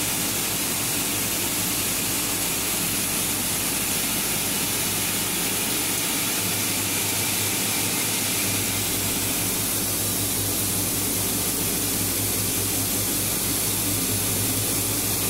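Plastic pulveriser machine running steadily, a constant whirring hiss with a low hum underneath.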